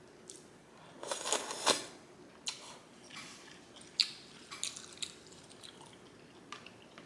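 Close-miked mouth sounds of eating ramen: a short burst of slurping about a second in, then scattered wet chewing smacks and sharp clicks.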